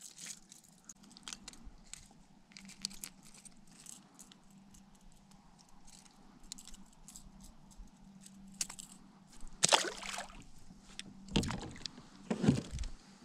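Light clicks and knocks of gear being handled on a plastic fishing kayak. Near the end come a few louder splashes as a hand dips into the lake water beside the hull.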